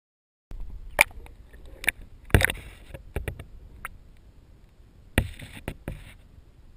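Water sloshing with sharp clicks and knocks, heard muffled from inside a waterproof camera housing under water. It starts after a short silence, with the loudest splashy knocks about two and a half seconds in and again around five seconds in.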